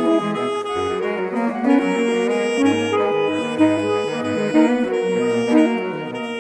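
Saxophone quartet, baritone through soprano saxophones, playing together: a long held upper note over moving lower parts, with the baritone adding low notes in the middle.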